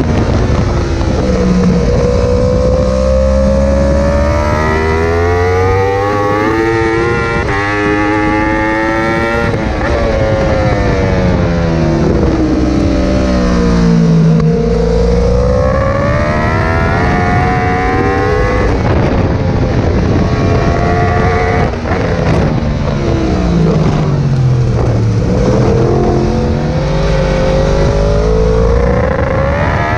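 Yamaha R1 race bike's crossplane inline-four engine at racing speed: revs climb hard under acceleration, dip briefly at upshifts and fall away on braking and downshifts into corners, several times over.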